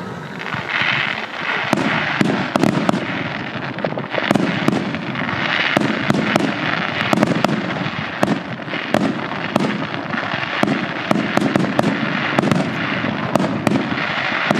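Fireworks going off in a dense barrage: rapid sharp bangs, several a second, over continuous crackling.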